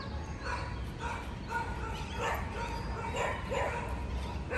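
A dog giving a series of short, high-pitched calls.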